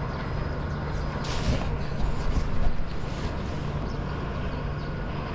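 Steady low engine rumble with a constant hum. Brief hissing swells come about a second in and again near three seconds.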